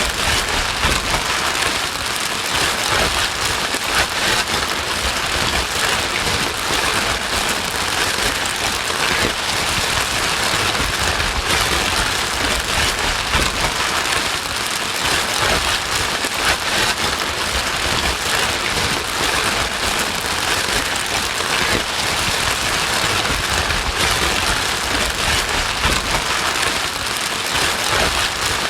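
Continuous white noise for calming a crying baby: a steady, even hiss that does not pause or change.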